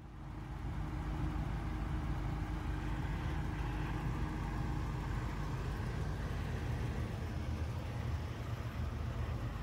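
A vehicle engine idling steadily with a low hum, fading up over the first second.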